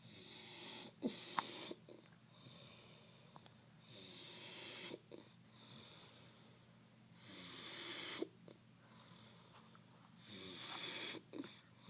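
A man snoring in his sleep: about four long, hissing snore breaths roughly three seconds apart, with short sharp catches in a couple of them.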